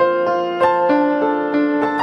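Background music: a piano-like keyboard playing a steady run of notes, about three a second, over held chords.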